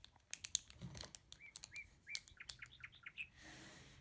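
Faint, quick plastic clicks of a wacky track's snap-together links being twisted, with a run of short, high, repeated chirps between about one and three seconds in.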